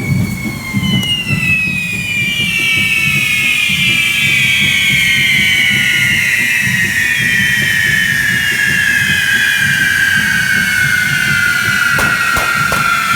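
Correfoc fireworks: several whistling fire fountains screaming together, each shrill whistle sliding slowly down in pitch as it burns, over a low rumble. A few sharp cracks come near the end.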